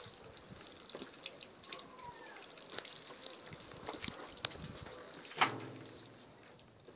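Wet, freshly plucked chicken carcass being handled, with faint drips and small wet clicks. About five and a half seconds in it is set down in the stainless-steel drum of the plucking machine, giving a single knock with a short metallic ring.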